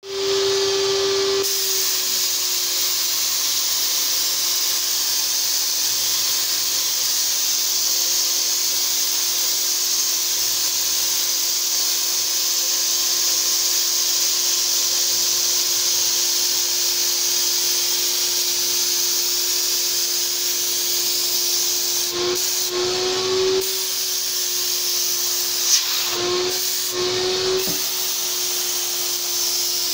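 Graco HVLP paint sprayer running: a steady turbine whine under the hiss of air and paint mist from the spray gun. Twice near the end the whine lifts briefly in pitch.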